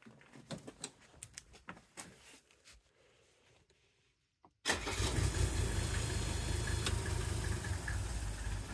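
Mercedes-Benz 300D diesel engine starting on the newly fitted ignition key: after a few small clicks and a short quiet spell, it catches abruptly about halfway through and settles into a steady idle.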